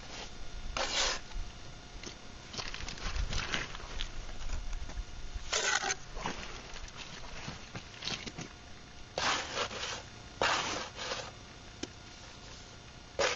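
Trowel scraping and slapping wet mortar onto the top of a concrete block: several short, separate scrapes with pauses between them.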